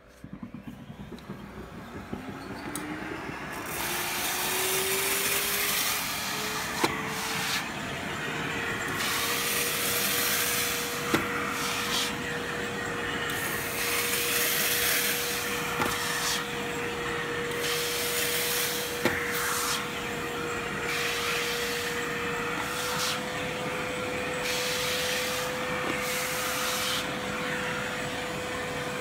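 Blue Evolution S+ steam-vacuum cleaner's suction motor starting up, its whine rising in pitch over the first few seconds and then holding steady. The rush of sucked air swells and drops again and again as the rubber-lipped window nozzle is drawn over the glass, with a few sharp clicks.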